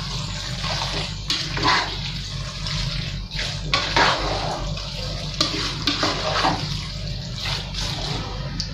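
Noodles in a thick creamy sauce being stirred and tossed in a metal pot, a wet slopping noise, with a click or knock of the utensils against the pot every second or so.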